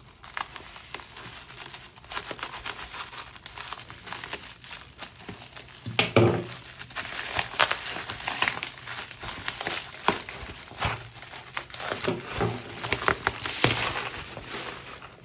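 Packaging being unwrapped and handled: steady crinkling and rustling of plastic and paper wrap, with a few louder knocks.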